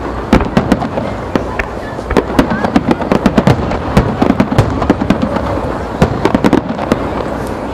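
Aerial fireworks going off in a rapid barrage: many sharp bangs a second from bursting shells, overlapping, over a steady low rumble.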